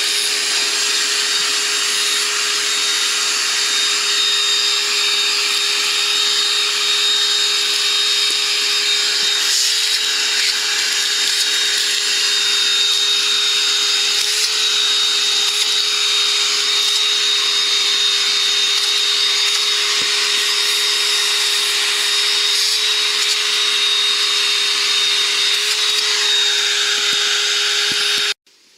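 Vacuum cleaner running steadily, a constant motor whine over rushing air, sucking dust and lint out of an RV air conditioner's condenser fins. It cuts off abruptly near the end.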